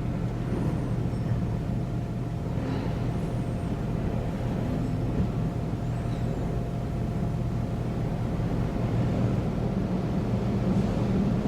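Elevator car in motion: a steady low mechanical hum from the lift drive, growing slightly louder toward the end.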